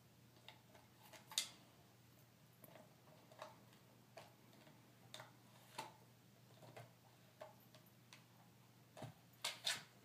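Dog gnawing a hard chew bone: irregular short, sharp clicks of teeth on the chew, roughly one a second, with a quick cluster of louder clicks near the end, over a faint steady hum.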